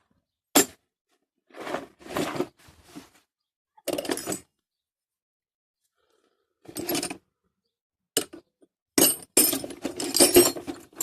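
Loose metal wrenches clinking and clattering against each other in several short bursts, busiest near the end.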